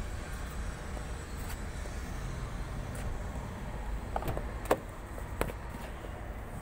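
Mini Cooper door opened by its chrome outside handle: a few sharp latch clicks between about four and five and a half seconds in, over a steady low rumble.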